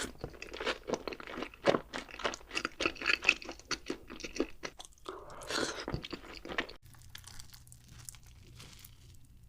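Close-up eating sounds: crisp, rapid crunching and chewing of food for about five seconds, with a longer noisy mouthful sound just after, then it quietens near the end.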